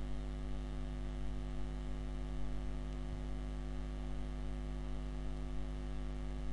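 Steady electrical mains hum, a low even drone with a stack of higher overtones, unchanging throughout.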